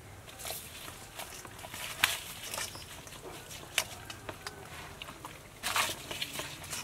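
Hands working herbs and seasoning into a whole fish in a stainless-steel bowl: soft wet rustling and scattered light clicks, with a louder rustle near the end.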